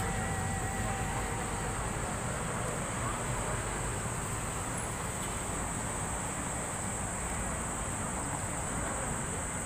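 Steady outdoor background noise picked up by a phone's microphone while walking: a low rumble under a constant high hiss, with a faint wavering whistle-like tone for about the first two seconds.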